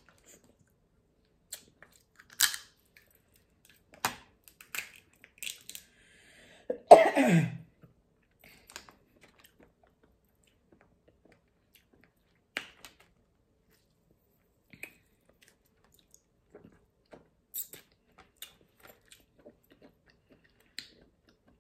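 Eating steamed blue crabs by hand: scattered short cracks and snaps of crab shell being broken apart, with chewing. About seven seconds in comes a short vocal sound falling in pitch, the loudest moment.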